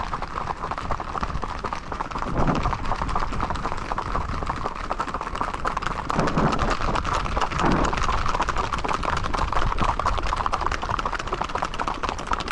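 Many horses' hooves striking an asphalt road in a rapid, continuous clatter of clip-clops as a group of riders moves along at a quick gait, with the hoofbeats of the ridden horse carrying the camera nearest.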